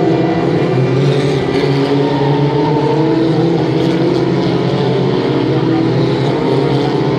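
Several historic Formula Ford race cars' 1600 cc Ford Kent four-cylinder engines running hard together as a pack goes through a corner. The overlapping engine notes rise in pitch in places as cars accelerate out of the bend.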